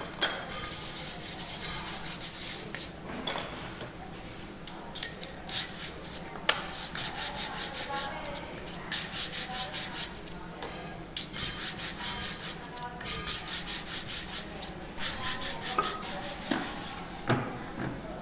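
A metal tractor hydraulic-pump part rubbed by hand on an abrasive sheet over a flat steel plate, lapping its face flat. The scraping comes in spells of quick back-and-forth strokes, about five a second, with short pauses between the spells.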